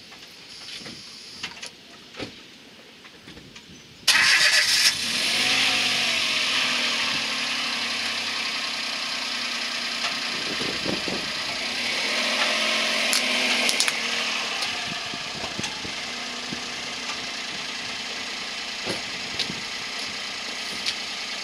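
A few light knocks, then a Peugeot 107 hatchback's engine starts abruptly about four seconds in and settles into a steady run.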